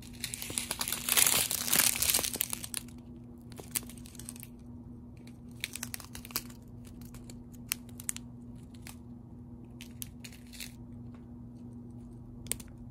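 Clear plastic bags of square resin diamond-painting drills crinkling as they are handled: a long, loud rustle in the first three seconds, then shorter crackly rustles at intervals.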